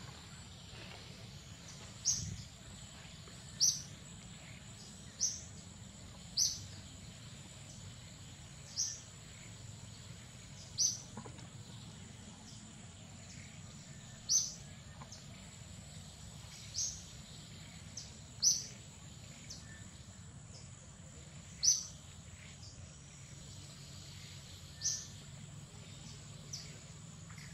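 A bird repeating a short, high call about every two to three seconds, over a steady high-pitched insect drone in the forest.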